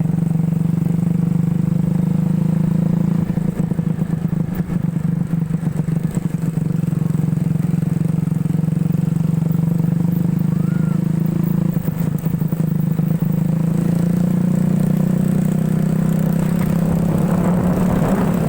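Motorcycle engine of a home-built ATV running at a steady, even speed, its note wavering briefly a couple of times.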